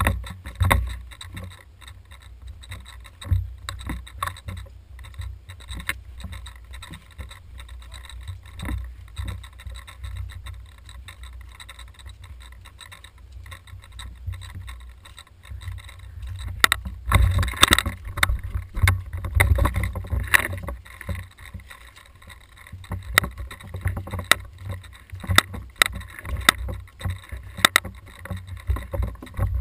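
Handling and movement noise on a rifle-mounted camera as the player walks and then hurries along a forest path: a steady low rumble with knocks and clicks from footsteps and jolts to the rifle. The knocks grow busier and louder about halfway through, coming once or twice a second near the end.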